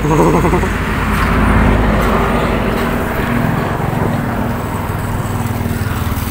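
Road traffic passing close by: the engines of a small pickup truck and a motorbike, heard as a steady drone that swells near the start and again a second or two in.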